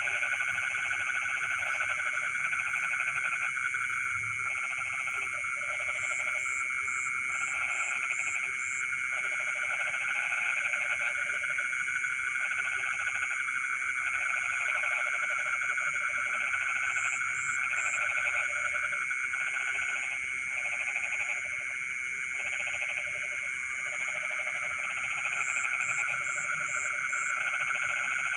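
Chorus of frogs calling in flooded rice fields at night: repeated croaking bouts about a second long with short gaps between, over a steady high-pitched trilling, and now and then a short run of quick high ticks.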